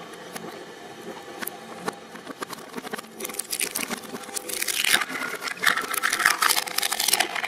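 Twin-shaft shredder running with a low hum, then from about three seconds in its blades crunch and crack through a plastic toy grenade in a dense run of sharp snaps that grows louder toward the end.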